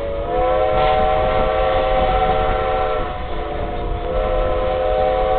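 Steam locomotive's chime whistle sounding two long blasts, several notes at once, over the low rumble of the moving coach: the whistle signal for the road crossing just ahead.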